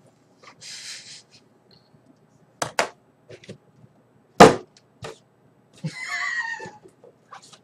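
Handling a large cardboard model-kit box: a brief rustle, two quick knocks, a loud thump about halfway through, then a squeaky scrape of cardboard near the end.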